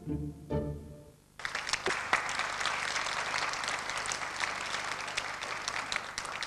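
String music plays its last notes, ending about a second in. Then an audience breaks into applause that keeps going.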